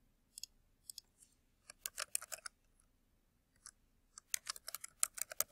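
Computer mouse and keyboard: a few separate clicks in the first second, then two short runs of typing, one about two seconds in and a longer, quicker one near the end.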